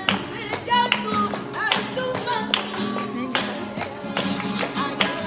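Flamenco music: acoustic guitar playing with a singing voice wavering above it, punctuated by many sharp, irregular claps (palmas).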